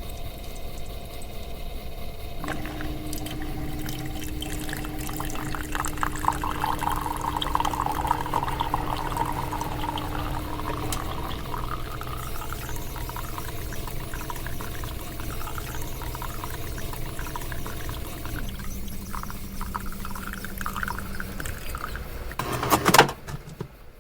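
Nespresso capsule coffee machine brewing: its pump hums steadily as it forces water through the capsule and coffee pours splashing into the cup. The hum drops lower near the end of the brew and stops, followed by one sharp clack near the end.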